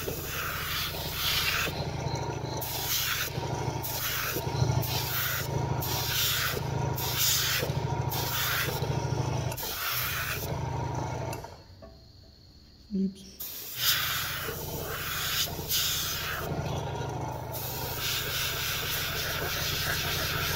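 Airbrush hissing in short bursts, about one a second, over the steady hum of an air compressor. Both stop for about two seconds past the middle. Then the compressor hum comes back and the bursts go on, merging into a steady hiss near the end.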